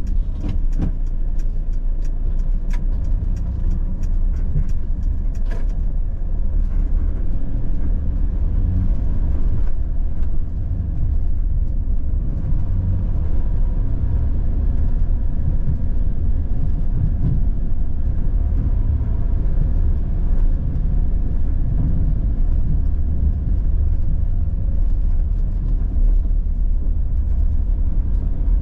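Steady low engine and road rumble heard from inside a van's cab while it drives along, with a few light clicks or rattles in the first few seconds.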